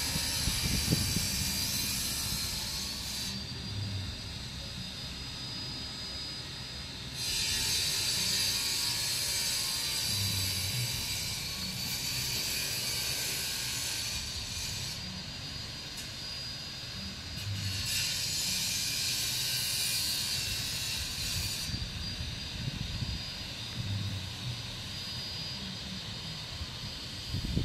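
Outdoor ambience: a high-pitched buzzing hiss that comes and goes in stretches of several seconds, switching on and off abruptly, over an irregular low rumble on the microphone.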